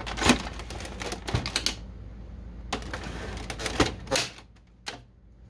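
Plastic clicks, knocks and rattles from the casing of a Canon Pixma MG6220 printer as it is handled and its side cover tabs are pried with a screwdriver. Sharp irregular clicks come thickest in the first two seconds, with a few more a little before the end, then it goes quiet.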